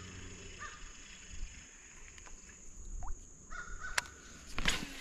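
A crow cawing a few times. About four seconds in, a fishing lure is cast: a sharp click, then a short splash as it lands in the water.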